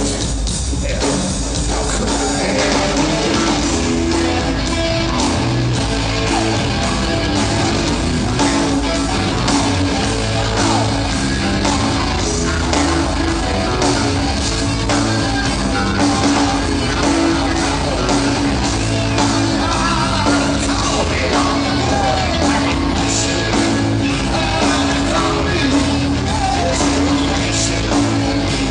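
A Southern rock band playing live on electric guitars, bass and drums, with a male lead singer singing and shouting over them.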